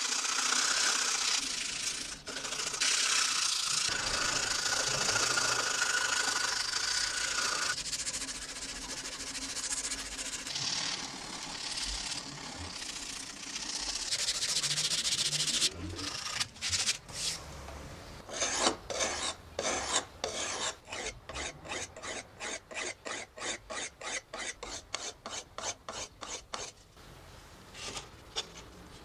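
Sandpaper rubbing by hand on a laminated wooden knife handle, a steady scratchy rubbing. After about two-thirds of the time it gives way to rapid rhythmic strokes, about three a second, which stop shortly before the end.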